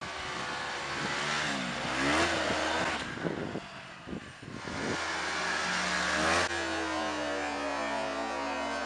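2008 Yamaha Phazer MTX snowmobile's four-stroke twin engine revving, its pitch rising and falling as it rides and jumps, with a drop in level around the middle.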